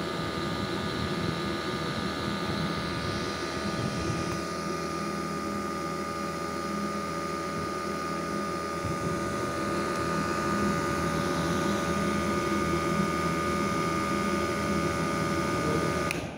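Small 12-volt DC motor spinning a propeller inside a plastic bucket air cooler, a steady whirring hum with a whine; it stops abruptly near the end when switched off.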